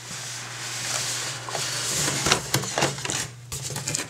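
Cardboard packaging scraping and rustling as an inner box is slid out of its cardboard sleeve, with a few light knocks as the box is handled and opened near the end.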